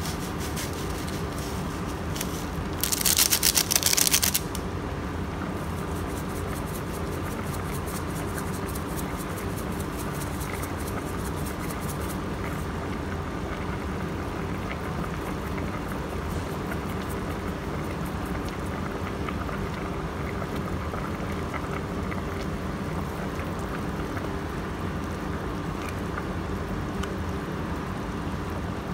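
Seasoning going into a simmering pot over a steady hum: a loud hiss about three seconds in, then several seconds of rapid fine clicking, as from a pepper grinder, which leaves ground black pepper on the broth.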